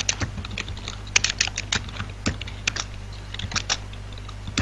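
Typing on a computer keyboard: quick, irregular key clicks, with a low steady hum underneath.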